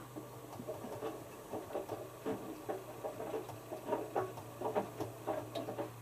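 Hotpoint HF8B593 washing machine drum turning slowly, its motor humming steadily while the small load of laundry tumbles and drops against the drum in irregular soft thuds and swishes, several a second.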